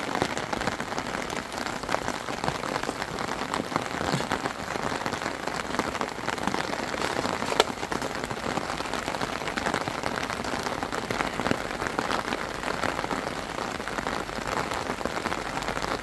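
Steady rain falling, with the ticks of individual drops striking a surface and one sharper tap about seven and a half seconds in.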